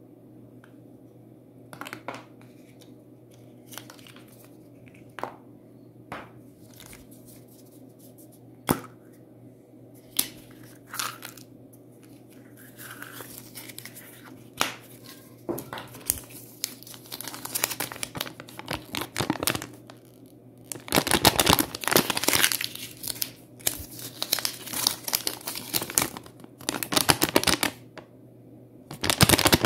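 A Kinder Surprise egg being opened by hand: scattered sharp clicks and cracks as the milk-chocolate shell breaks and the yellow plastic capsule is snapped open, then, about two-thirds in, a long stretch of loud crinkling as the toy's wrapping and folded paper leaflet are unwrapped.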